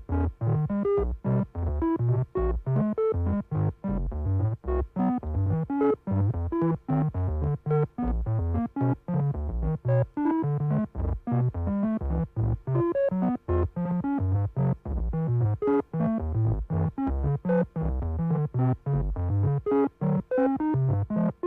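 Electronic synthesizer tones in a rapid random sequence, alternating between low and medium pitches several times a second, like a sci-fi computer console sending telemetry data.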